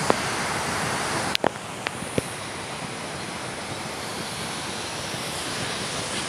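Steady rush of falling water from a waterfall swollen by heavy rain, with a few short clicks in the first two seconds.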